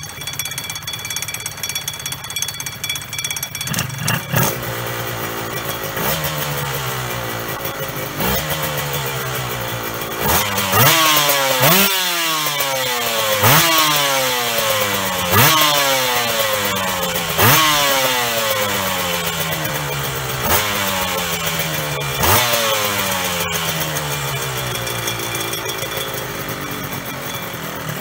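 Honda NSR250 MC21 two-stroke V-twin, built to Tyga 300 spec and breathing through Tyga stainless expansion chambers, idling and then blipped on the throttle again and again, roughly every two seconds: each rev shoots up and then falls slowly back to idle. The blips stop a few seconds before the end, leaving it idling.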